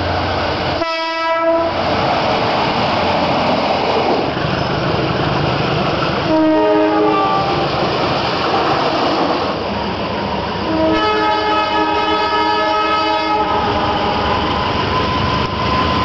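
Diesel train air horns sounding the Semboyan 35 warning signal, from several trains in turn: a short blast about a second in, another around six seconds, a long blast of nearly three seconds from about eleven seconds, and a new one starting near the end. The rumble of trains running on the track carries on between the blasts.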